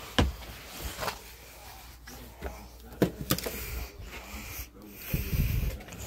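Handling noise: several sharp clicks and knocks with rustling as a small handheld emergency radio is picked up and moved about, with a low rumble near the end.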